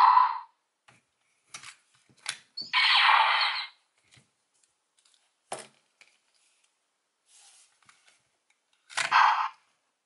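Plastic clicks as Morph-X Keys are pulled out of and pushed into an electronic Power Rangers Beast Morphers toy, broken by short, harsh electronic sound effects from the toy's small speaker: one fading out at the start, one of about a second roughly three seconds in, and a shorter one near the end.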